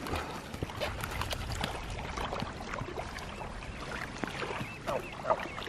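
Water washing steadily at the shore, with scattered short clicks and rustles from a snapper and fishing tackle being handled on the sand.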